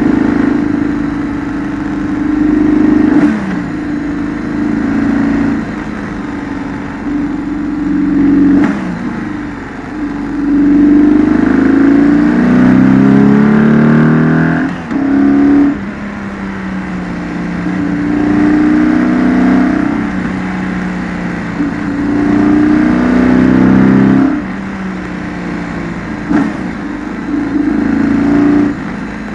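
BMW R1200GS flat-twin boxer engine at speed. Revs rise under acceleration and fall back when the throttle is closed, with a few sudden drops in pitch at upshifts.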